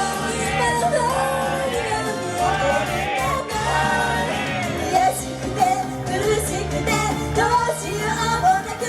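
Female idol group singing a J-pop song live over a loud backing track, heard through a live-house sound system.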